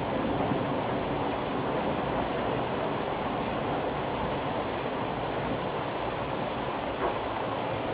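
Steady rushing rain from a thunderstorm, even and unbroken, with a faint click about seven seconds in.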